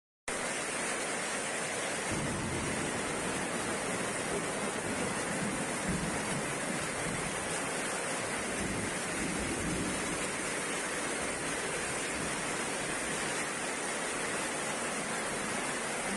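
Heavy rain with strong wind: a dense, steady hiss that cuts in abruptly just after the start, with gusts of wind on the microphone from about two seconds in.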